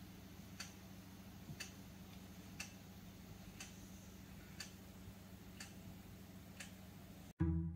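Mantel clock ticking once a second, seven faint ticks in a row. Plucked-string music cuts in suddenly near the end.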